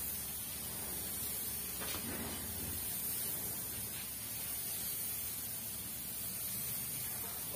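Compressed-air paint spray gun hissing steadily as it sprays paint onto a car's body panels.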